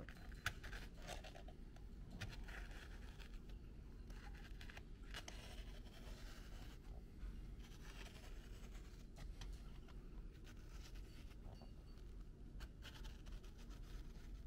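Utility knife slicing through the leather backing of a ram fur pelt, a faint scratchy scraping in short irregular strokes.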